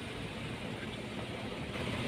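Car creeping slowly on a concrete floor with its front wheel turning, a steady rolling and running noise that grows slightly brighter near the end. This is the complained-of metal noise from the front, which the mechanic traces to front brake pads worn down to metal-on-metal.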